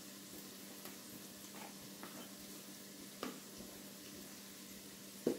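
Onions and garlic frying faintly in oil in a Ninja Speedi's pot on its sear/sauté setting, over a steady low hum. A few light clicks come through, the sharpest about three seconds in and near the end.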